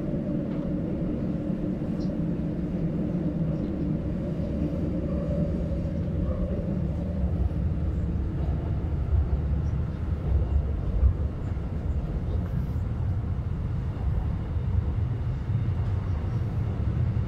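Shanghai Metro Line 15 train running between stations, heard from inside the passenger car: a steady low rumble of wheels and running gear. A hum over it fades out about seven seconds in, and the deep rumble swells somewhat later.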